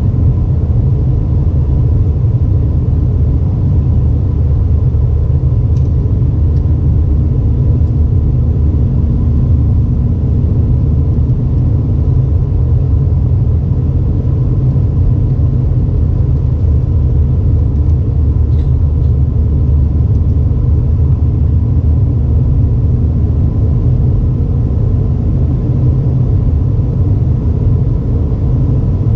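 Steady low rumble of an Airbus A320's cabin, with a faint steady hum over it and a couple of faint clicks.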